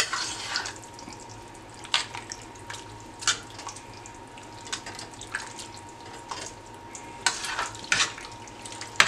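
A spoon stirring thick, wet chili of beans, ground beef and diced tomatoes in a stainless steel pot: sloshing, with irregular scrapes and knocks of the spoon against the pot.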